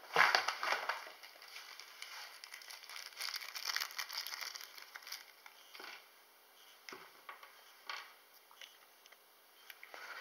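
Paper wrapping crinkling and rustling as it is handled and opened, loudest at the start and again midway, followed by a few light clicks.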